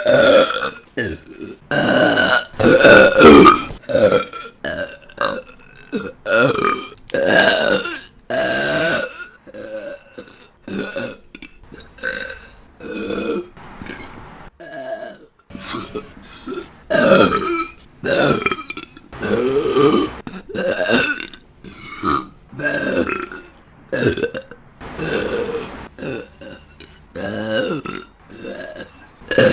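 A woman burping again and again, roughly one loud burp a second, some long and drawn-out, others short, spliced one straight after another.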